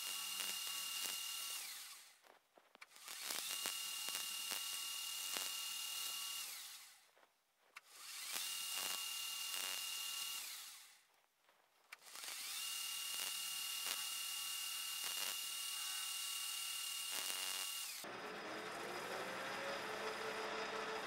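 Metal lathe turning the face of a small brass flywheel. There are four cutting passes of hissing machining noise with a steady high whine, each tailing off, with short silent gaps between them. About 18 seconds in, the sound changes to a lower, steady running hum.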